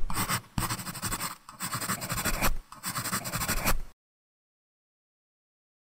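Sound effect of an ink brush swept across paper: about four rough scratching strokes, cutting off abruptly about four seconds in.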